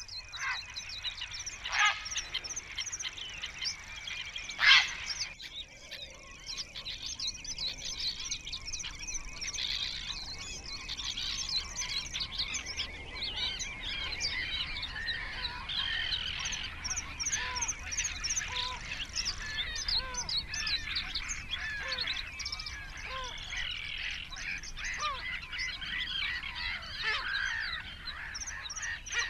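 A busy chorus of wetland birds calling, many overlapping chirps and whistles, with two louder brief calls in the first few seconds.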